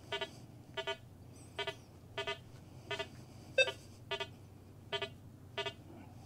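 Rutus Versa metal detector beeping as its DD23 coil is swept over test targets: short pitched beeps, mostly in pairs, coming about every 0.7 s. One louder beep of a different pitch comes about three and a half seconds in.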